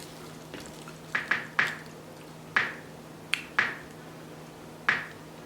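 Eating crab legs: about seven short, sharp wet snaps and cracks, spaced irregularly, from shells cracking and mouth smacks, over a faint steady hum.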